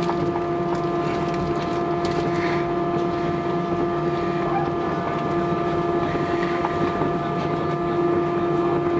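Steady cabin drone of an Airbus A320 taxiing with its engines at idle: a constant hum with several steady tones over a hiss of air, even in level throughout.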